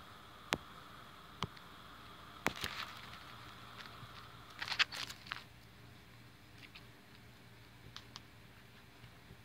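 Scattered sharp clicks and brief rustles of leaves and phone handling close to the microphone, busiest about five seconds in, over a faint steady hiss that fades about halfway.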